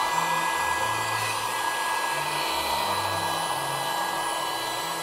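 Small electric air pump for a car air mattress, running steadily: a constant motor whine over the rush of air as it blows into the mattress valve and inflates it.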